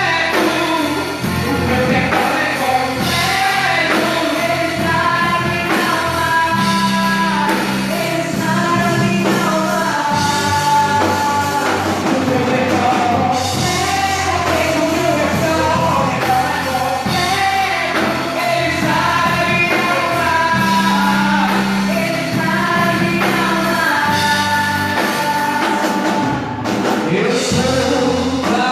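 Christian worship music: a church band playing with singing.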